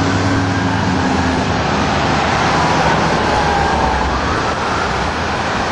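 Passing car traffic, engines and tyres, with a fire engine's siren wailing faintly under it as the pumper pulls away, its pitch slowly falling.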